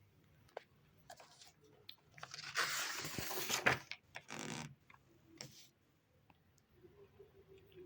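Crinkling, rustling handling noise in a dense burst of about a second and a half, then a shorter one, with a few light clicks before and after.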